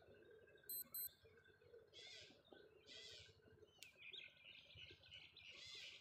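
Faint birds chirping in repeated short calls, more often in the second half. Two short, high electronic beeps sound about a second in.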